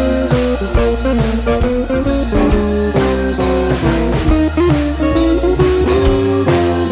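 Background music: guitar over drums with a steady beat.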